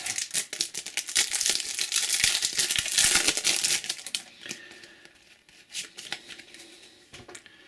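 Foil trading-card booster pack crinkling and tearing open, a dense crackle for about four seconds, then fainter scattered clicks and rustles as the cards are handled.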